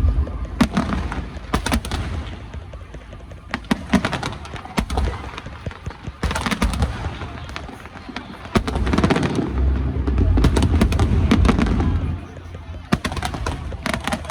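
Fireworks display: aerial shells bursting in repeated sharp bangs and quick crackling runs over a low rumble, which is loudest from about two-thirds of the way through.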